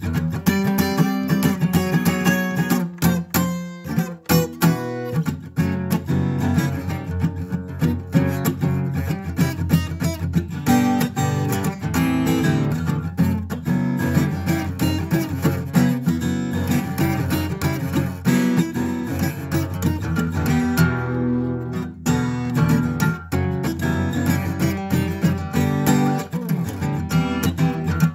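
Acoustic guitar music, plucked and strummed, playing steadily.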